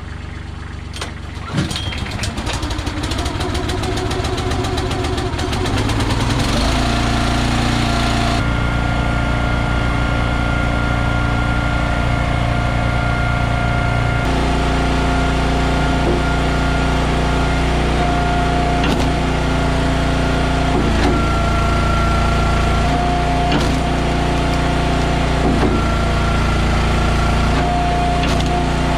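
Small gasoline engine of an Eastonmade AXIS wood splitter starting up and running unevenly at first, then settling into a steady run at higher speed about six seconds in.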